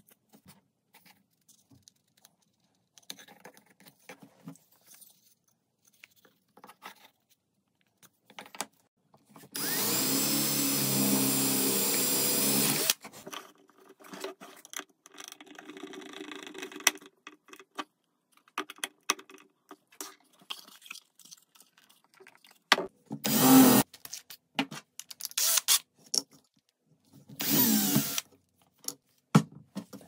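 A small power tool's motor runs steadily for about three seconds, then runs in three short bursts near the end, with light knocks of wooden pieces being handled in between.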